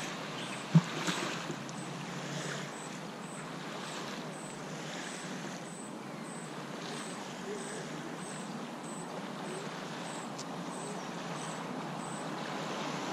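Small lake waves lapping on a sandy shore, heard as a steady wash of water noise, with one sharp click about a second in.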